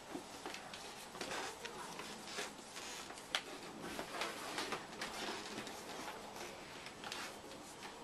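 Soft, irregular rustling and rubbing handling noises, with one sharp click about three and a half seconds in.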